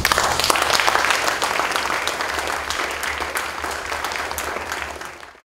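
Audience applauding, starting at once at full strength and slowly tapering off before it stops abruptly near the end.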